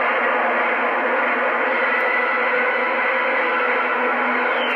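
Steady hiss of band noise from a Stryker CB radio's speaker, cut off above and below like radio audio, with a faint whistle tone coming in about halfway through.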